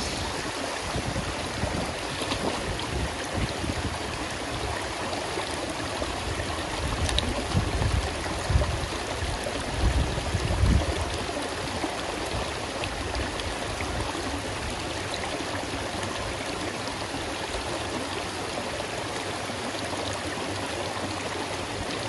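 Water spilling down a concrete dam wall into a pool and running over rocks, a steady rushing. A few low rumbles rise over it about a third of the way to halfway through.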